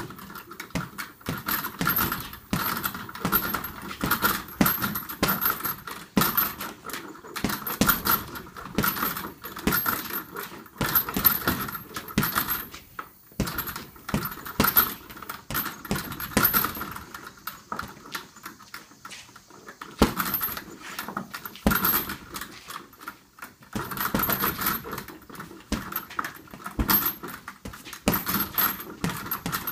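Boxing gloves punching an Everlast heavy bag in rapid runs of blows, with brief pauses between flurries. The bag's metal hanging hardware jingles and rattles as the bag swings on its straps.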